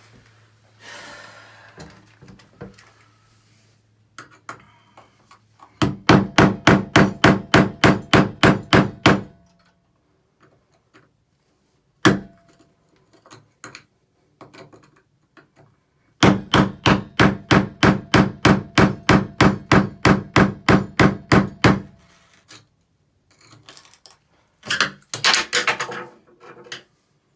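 Hammer rapidly striking a screwdriver to chip hardened grout out from around a tub-and-shower valve stem set in ceramic tile. There are two runs of quick blows at about four a second, each several seconds long, with a single blow between them and a few lighter knocks near the end.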